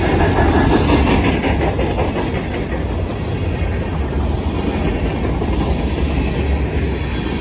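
Covered hopper cars of a CSX manifest freight train rolling past close by: a steady rumble and clatter of steel wheels on the rails, loudest in the first couple of seconds.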